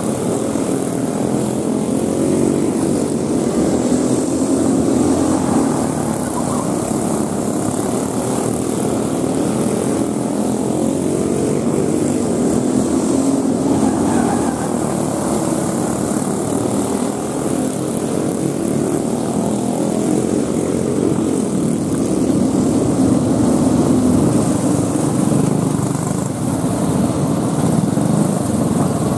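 Several go-karts with 5 hp Briggs & Stratton single-cylinder engines racing together, their buzzing engine notes overlapping and rising and falling in pitch as the karts accelerate through the turn and pass.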